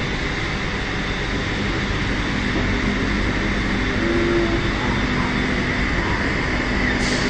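Reignmac RMM620 four-side moulder running under load as it machines a wooden strip: a steady, even machine noise with a few held tones.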